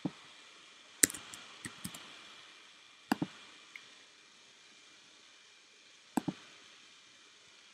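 Computer mouse and keyboard clicks: about ten short, sharp clicks, a cluster about a second in and quick pairs about three and six seconds in, over a faint steady hiss.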